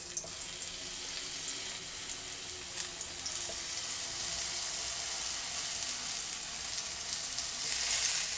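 Long-cut okra pieces sizzling in hot lard in a frying pan as they are laid in one by one. The hiss is steady and swells briefly near the end as another piece goes in.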